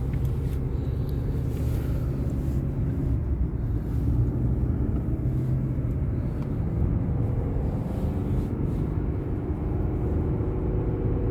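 Steady low rumble of a car heard from inside the cabin, with engine and road noise while driving.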